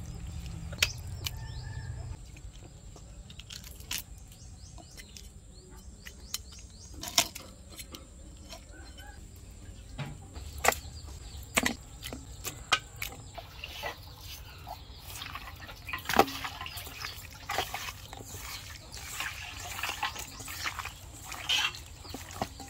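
Raw fish pieces being handled and mixed by hand in a stainless steel bowl: wet squelching with scattered sharp clicks and knocks, growing busier in the second half.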